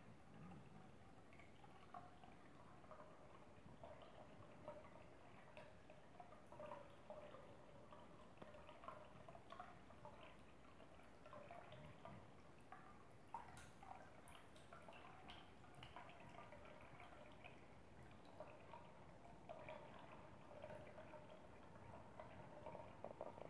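Faint drip and trickle of a thin stream of water from a bidet tap falling into a filled bowl, with small irregular plinks and splashes.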